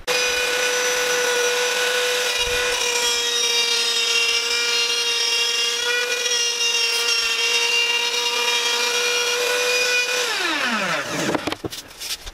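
Table-mounted wood router running at a steady high pitch while a plywood board is fed across its straight bit to cut a slot. About ten seconds in the router is switched off and its pitch falls as it spins down.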